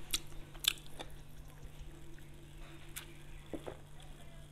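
Quiet drinking sounds from a glass mug: a few faint clicks, then small liquid and swallowing noises about three and a half seconds in.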